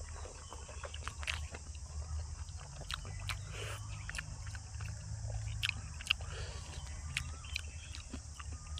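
A person chewing braised pork leg close to the microphone: irregular wet clicks and smacks of the mouth over a steady low hum.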